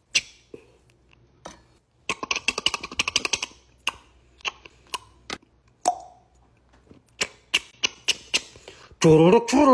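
Short wet clicks and small plops as a large avocado is scooped out of its skin and the empty shell handled, with a quick run of clicks about two seconds in. Music with singing comes in near the end.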